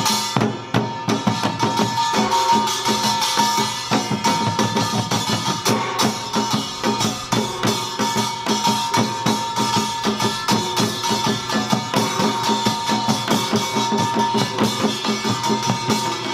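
Samul nori ensemble of Korean percussion playing seated Utdari rhythms: janggu hourglass drums and buk barrel drums beat a fast, dense stream of strokes. The kkwaenggwari and jing gongs ring over the drums.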